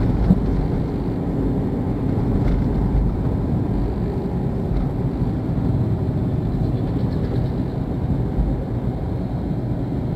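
Car driving slowly on a town street, heard from inside the cabin: a steady low rumble of engine and tyre noise.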